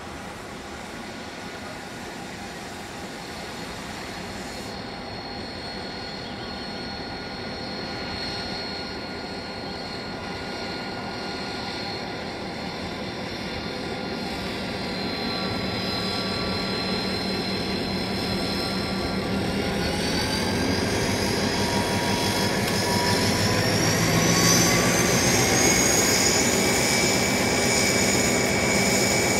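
81 class diesel-electric locomotive 8169, its turbocharged EMD 16-cylinder engine running under load as it hauls a container train, growing steadily louder as it approaches and passes close by. From about two-thirds of the way through, high whines rise in pitch and then hold steady.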